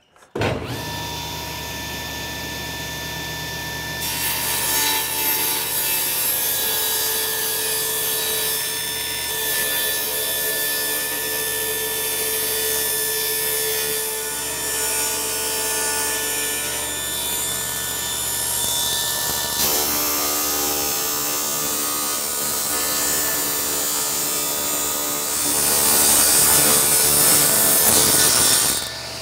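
Table saw running and ripping a thin strip off a white oak board. The blade's cutting noise comes in about four seconds in over the steady motor hum and grows louder near the end.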